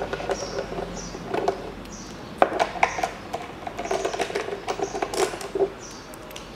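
Socket wrench on an extension undoing the valve-cover bolts of a Mitsubishi 4B10 engine: scattered sharp metal clicks, then a rattling run of quick ticks from the tool being spun about four seconds in. Short high chirps come and go in the background.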